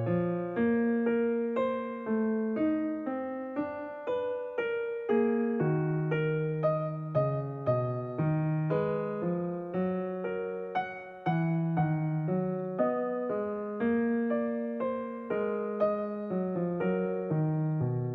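Calm, slow piano music: soft notes struck one after another, each ringing and fading before the next.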